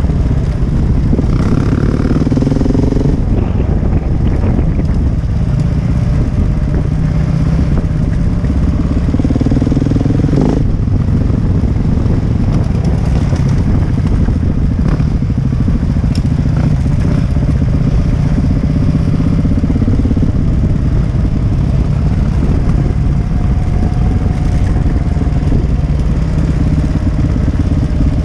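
KTM EXC 150 two-stroke enduro motorcycle running under way on a dirt track, its engine note rising and falling with the throttle.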